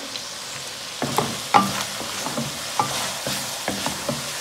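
Wooden spatula scraping and knocking against a metal pan while stirring mutton keema frying in oil, over a steady sizzle. The stirring strokes start about a second in and come in quick, uneven succession.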